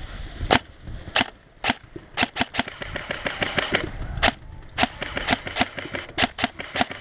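Airsoft guns firing single shots, each a sharp crack, about fifteen in irregular spacing, some in quick pairs and triplets.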